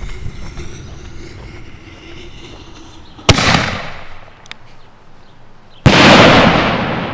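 Aerial salute ball shells firing: two sharp bangs about two and a half seconds apart. The second, a shell bursting high overhead, is the louder and trails off in a long echoing rumble.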